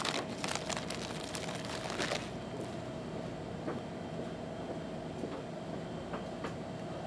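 Crinkling and rustling of plastic snack packaging being gathered up for about two seconds, then a steady background hum with a faint thin whine.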